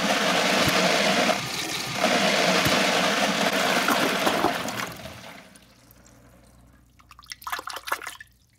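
Toilet flushing a bowlful of candy pieces: loud rushing water that dies away about five seconds in as the bowl drains and refills. Near the end comes a short run of splashing as a hand goes into the bowl water.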